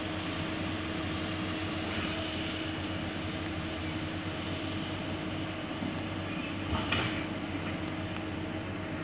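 Hydraulic excavator's diesel engine running steadily at a distance as the machine climbs a steep slope, a constant drone with a steady tone. A short louder noise about seven seconds in.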